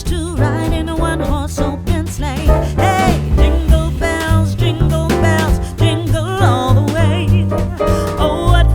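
Music: a song with a singing voice over a bass line and percussion.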